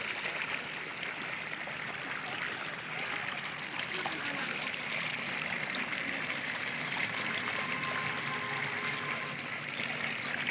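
Water running steadily into a muddy pit, churning where the flow enters.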